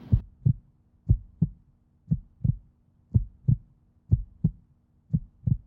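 Heartbeat sound effect: paired low thumps, lub-dub, about once a second, over a faint low hum.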